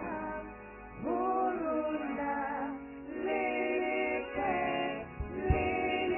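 A small group of women singing a sacred song together into microphones, holding and sliding between sustained notes, with a few brief low thumps near the end.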